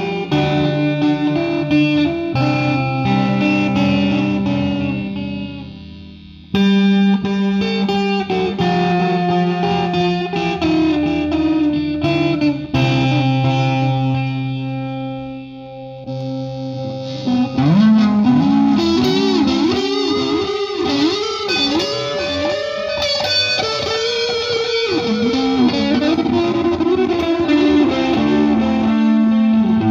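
Guitar music played through an effects unit, with sustained notes and chords; from a little past halfway the notes bend and waver in pitch. The sound breaks off and cuts back in abruptly, the kind of stuttering the uploader calls 'batuk-batuk' (coughing) and cannot explain.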